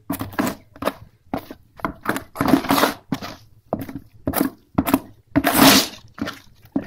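A thick, dough-like paste being stirred and scraped in a plastic basin: a run of short, irregular wet scraping strokes, about two a second, with a few longer scrapes.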